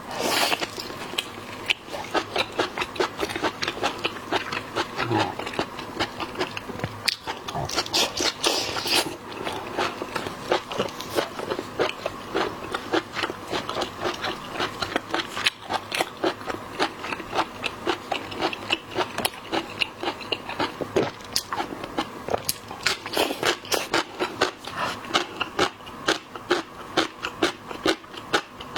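Close-miked eating sounds of a person biting and chewing seafood: continuous rapid wet clicks and crackles.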